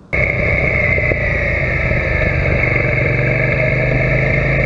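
Suzuki SV650's V-twin engine running at a steady speed while the motorcycle is ridden, heard from a handlebar-mounted camera; it starts abruptly just after the beginning and holds an even pitch.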